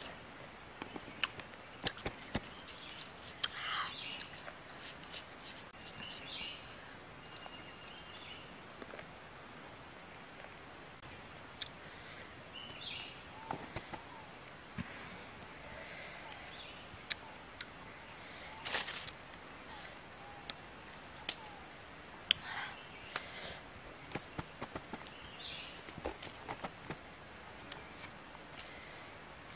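Insects droning steadily at a high pitch, with scattered small clicks and rustles from hands peeling a small green citrus fruit.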